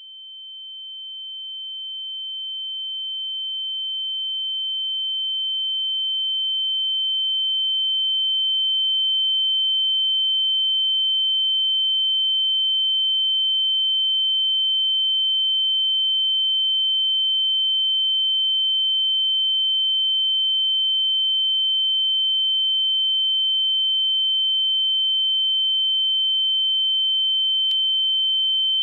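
A single steady high-pitched pure electronic tone, fading in over the first several seconds and then holding at one pitch and level.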